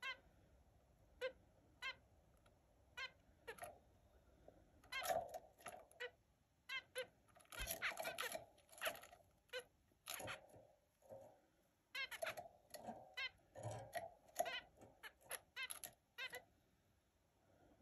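Zebra finches calling: many short, nasal beeping calls, scattered at first and then coming in quick, overlapping runs, dying away near the end.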